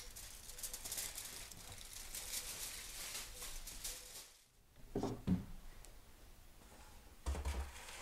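Aluminium foil crinkling and crackling as it is peeled off a roasting tray, then a few dull knocks and thumps.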